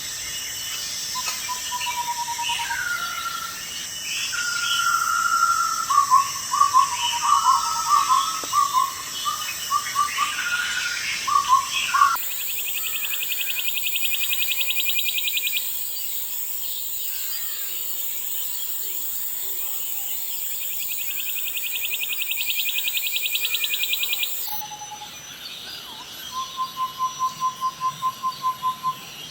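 Birds calling, in clips joined by abrupt cuts. First comes a string of short whistled notes and chirps, then a fast trill heard twice over a steady high hiss, and near the end a rapid run of evenly pulsed notes.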